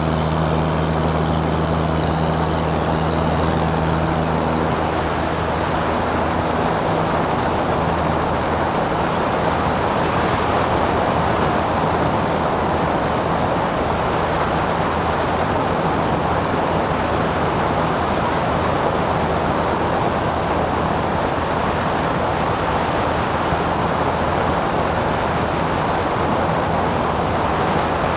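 Cessna 177 Cardinal's piston engine and propeller running steadily, with a broad rushing noise of air. An even low drone stands out for the first six seconds or so, then fades under the rushing noise.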